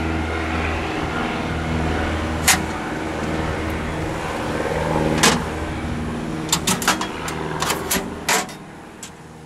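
A steady low machine hum with evenly spaced overtones fades away over the last few seconds. Several sharp clicks and taps of metal parts being handled sound over it, most of them in the second half.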